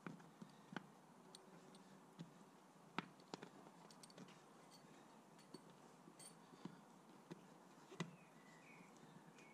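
Near silence with sporadic faint clicks and taps of parts being handled, two of them sharper knocks about three seconds in and near the end.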